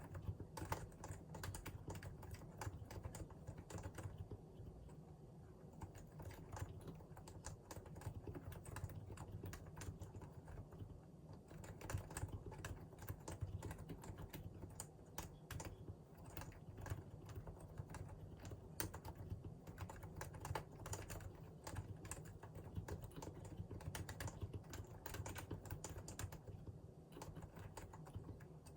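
Typing on a Realforce R2 PFU Limited Edition keyboard with Topre electro-capacitive switches: a fast, continuous run of keystrokes.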